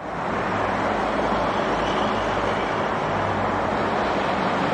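Steady highway traffic noise: tyres and engines of cars, buses and trucks passing close by on a multi-lane road, with a low engine hum underneath.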